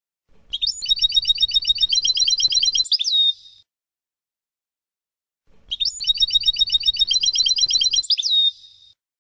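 European goldfinch song of the Palestinian 'Abu Khalil' type, played as tutor song for young birds: a rapid run of repeated notes, about ten a second, ending in a downward slurred note, heard twice as the same phrase a couple of seconds apart.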